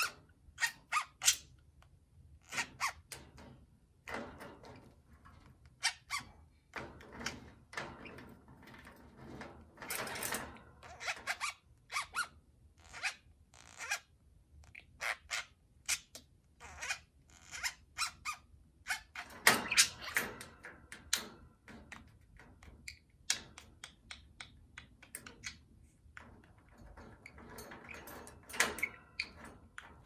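Pet budgerigars chattering with squeaky chirps in short spells, mixed with many sharp clicks and taps of a beak on the wire cage top and toys.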